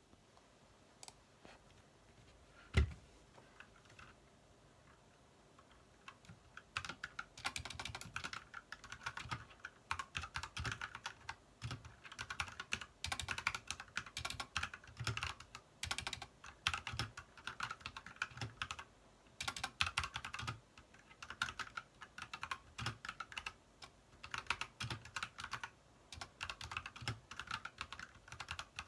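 Typing on an Ajazz mechanical keyboard fitted with cherry blossom keycaps: quick runs of key clacks in bursts with short pauses, starting about six seconds in. Before that come a single click and a louder thump.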